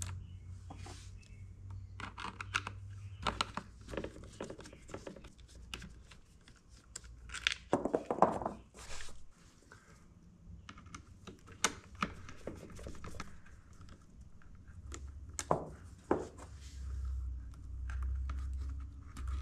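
Scattered small clicks, taps and rustles from a hand screwdriver backing out the small screws that hold wiring to the Honda Motocompacto's plastic storage box, and from hands moving the wires.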